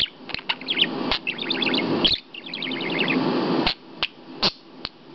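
Budgerigar warbling: quick chirps and two short rapid trills, broken by several sharp clicks.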